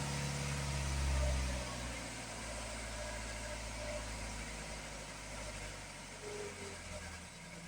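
Ford Transit Mk7 2.2 TDCi diesel engine running, louder for the first second or two, then settling lower and steady. The van has a rough idle and stalls, which the owner suspects comes from the high-pressure fuel pump.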